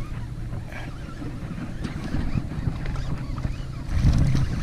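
Wind rumbling on the microphone, with a louder gust-like surge near the end as a hooked bass thrashes and splashes at the surface.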